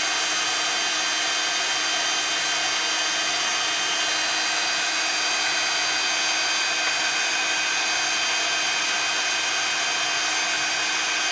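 Handheld craft heat tool running steadily, its fan blowing hot air to dry water-sprayed ink on card pieces. A constant whir with a faint high-pitched whine.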